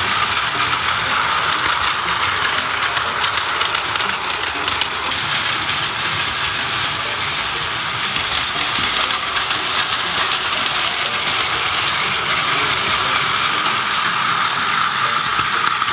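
Battery-powered Plarail toy train running on plastic track: the steady whine of its small electric motor and gears, with a fast clicking rattle of wheels and wagons over the track.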